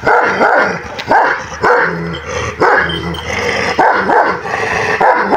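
Kangal shepherd dogs on leads barking at unfamiliar dogs, a steady run of loud barks at about two a second.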